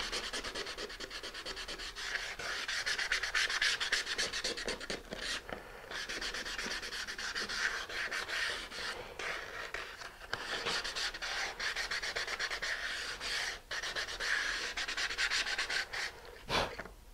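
Sanding block with 150-grit sandpaper rubbed quickly back and forth along the edges of a wooden rocket-glider fuselage boom, with a few short pauses. The edges are being rounded off because the wing's slide box fits too tightly. A single knock comes near the end as the sanding stops.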